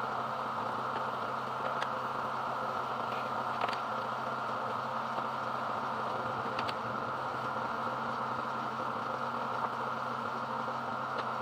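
Pressure washer running steadily: a motor hum under the even hiss of the water spray, with a few faint ticks.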